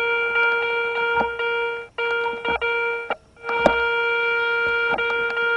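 A metal detector giving a steady, buzzy electronic tone as it sits over a buried metal target. The tone cuts out briefly about two seconds in and again just past three seconds, and a few sharp clicks sound under it.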